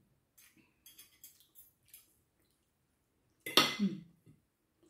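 Metal fork and spoon clinking and scraping against a ceramic soup bowl while cutting meatballs: a string of light clicks, then one louder burst of noise about three and a half seconds in.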